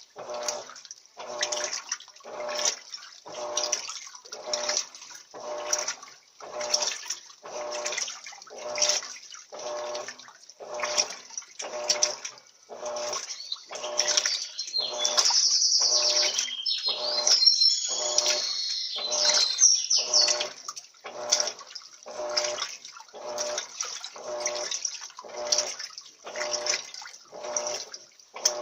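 Turbo 13 kg top-loading washing machine (LT13B) agitating a load in water on its quick programme: a regular slosh with each agitator stroke, about every three-quarters of a second. A louder hissing stretch comes about halfway through.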